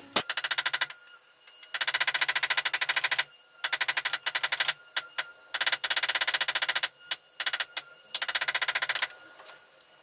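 Hammer striking an M6 bolt used as a drift, driving the pin into the gearbox selector shaft of a short gear shifter: fast, light, ringing metal-on-metal taps, about ten a second, in several runs separated by short pauses.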